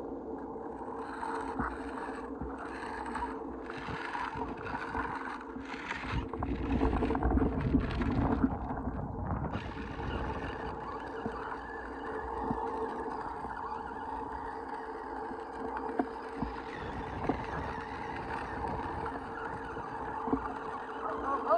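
Small battery-powered ride-on toy motorcycle running, its electric motor giving a steady whine. For the first half or so there is rough crunching from its wheels rolling over gravel.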